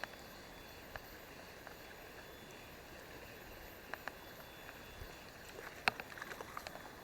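Steady rush of a small river, with scattered sharp clicks and taps that come thickest about six seconds in.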